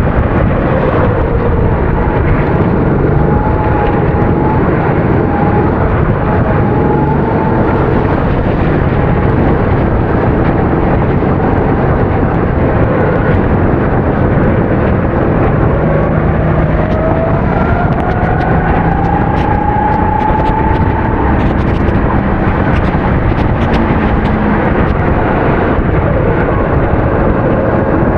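270cc kart engines running at race pace, their pitch rising and falling as the karts accelerate and brake, over a loud, steady rushing noise.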